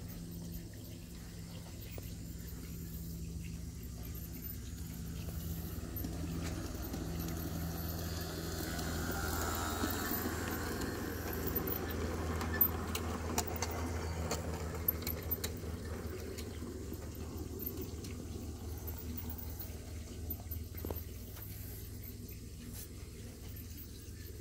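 G-scale garden railway train rolling past on brass track, its wheels on the rails swelling to a rumbling hiss about halfway through and then fading away, with a few sharp clicks as the cars go by.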